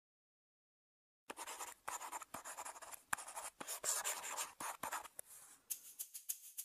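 Marker pen writing on paper in a series of short scratchy strokes, starting a little over a second in and stopping after about five seconds. Then a fast run of light ticks begins near the end.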